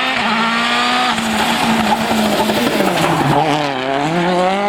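Citroën DS3 WRC rally car's turbocharged 1.6-litre four-cylinder engine running hard at high revs. The note holds fairly steady, then the revs dip about three seconds in and climb again near the end.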